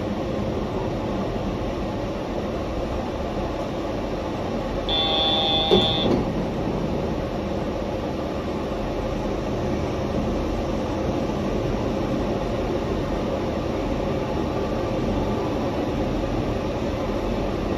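Yurikamome rubber-tyred automated guideway train running steadily, heard from inside the car. About five seconds in, a brief high-pitched tone sounds for about a second, ending with a sharp click.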